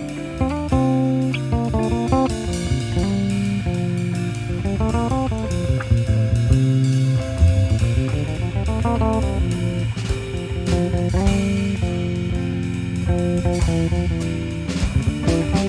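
Instrumental music from a guitar, bass and drums trio: the guitar plays quick lines of notes that climb and fall over a bass line and drum kit.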